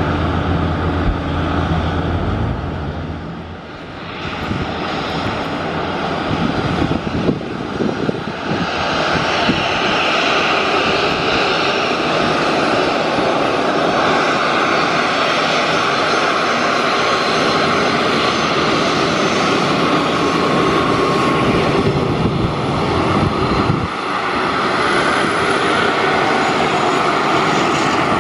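Boeing 737-500's CFM56-3 jet engines whining steadily as the airliner taxis at low thrust. A low rumble at the start fades out within the first few seconds, and the whine grows louder over the next few seconds, then holds steady.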